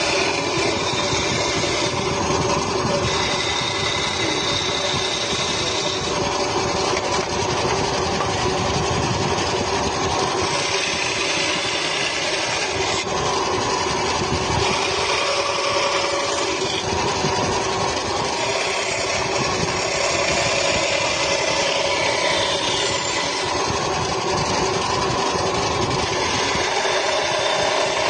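A motor-driven machine running steadily, with a few tones that shift now and then.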